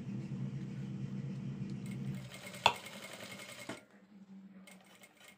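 Industrial sewing machine running with a steady hum that dies away a little after two seconds in. A single sharp click comes near the middle, and a few light clicks follow near the end.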